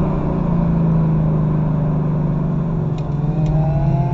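Ford Mustang GT's V8 engine running under steady throttle, then rising in pitch near the end as it accelerates.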